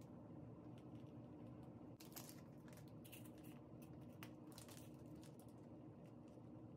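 Faint crinkling and rustling of a plastic piping bag being squeezed to pipe batter, in clusters of light crackles from about two seconds in, over a low steady room hum.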